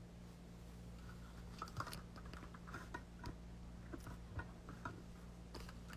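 Faint, scattered small clicks and taps over a steady low hum, with no speech.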